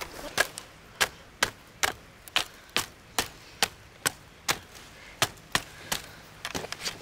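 Sharp knocks at about two and a half a second as split bamboo strips are struck down into a woven bamboo mat to pack the weave tight, with a few quicker, lighter taps near the end.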